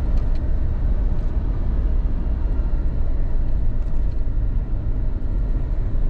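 Steady low road rumble heard from inside a moving car.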